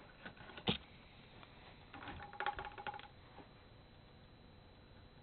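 A live adult mouse dropped onto the cardboard floor of a box: a sharp knock just under a second in, then a quick flurry of scratchy clicks from its feet on the cardboard around two to three seconds in.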